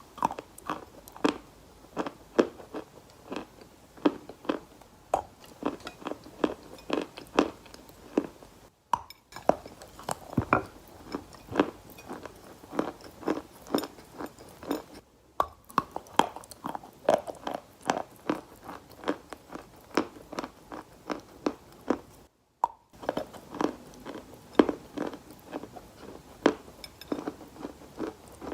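Repeated crisp crunches of a wet, gritty, sand-like material, about two or three a second, broken by three brief silent gaps.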